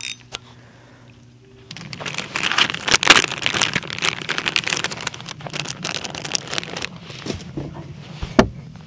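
A low steady hum, then, about two seconds in, a dense steady patter like spattering or splashing water starts and keeps on. A single sharp knock comes near the end.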